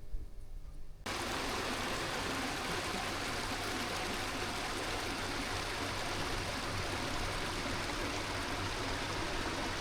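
A steady rushing noise that cuts in abruptly about a second in, after a brief low rumble.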